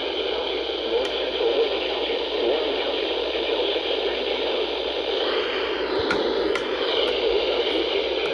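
Weather radio receiver giving a steady static hiss, with a few faint clicks, one about a second in and a few more around six to seven seconds in.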